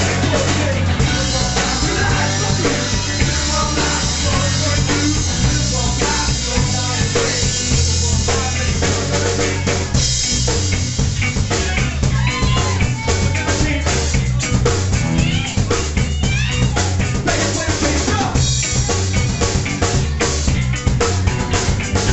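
Live rock band playing loud: a drum kit driving hard with snare and bass drum hits, under electric guitars.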